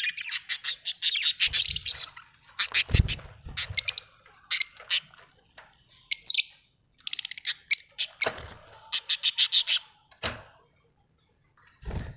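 Budgerigars chirping and chattering in quick runs of high, sharp chirps, broken by short pauses. A few dull low thumps come in between, at about one and a half, three, eight and ten seconds in and again near the end.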